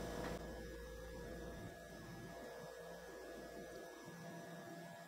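Faint steady electrical hum under quiet room tone; the slow pour of melted deodorant into the tubes makes no clear sound of its own.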